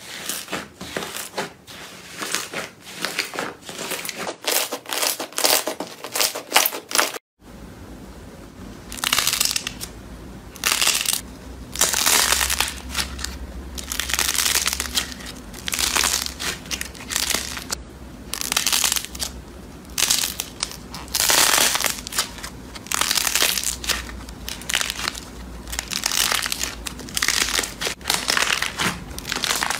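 Slime squeezed and kneaded by hand. The first part has fast, dense crackling squishes; after a short break about seven seconds in come slower squelching squeezes about once a second, over a low steady hum.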